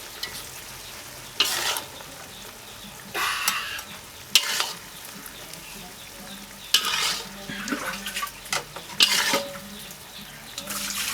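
A spatula stirring and scraping food in a hot frying pan, with about seven short scraping strokes spaced a second or two apart over a low background of frying.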